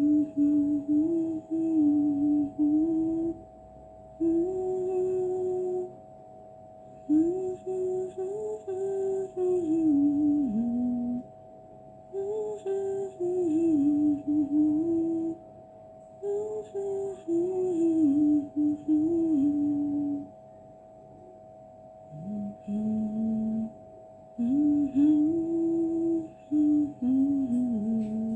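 A voice humming a slow melody in phrases of two to four seconds with short pauses between, over a faint steady drone.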